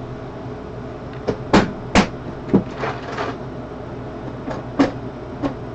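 Tools clattering and knocking as someone rummages for a screwdriver: a scatter of sharp clicks and knocks over several seconds, the loudest about two seconds in.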